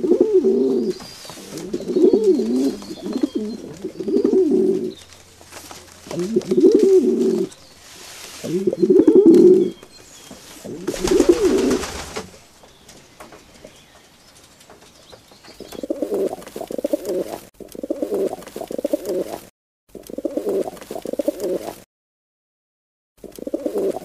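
Irani high flyer pigeons cooing in repeated low phrases of about a second each. A brief rustling noise comes about eleven seconds in, and the cooing cuts out abruptly twice near the end.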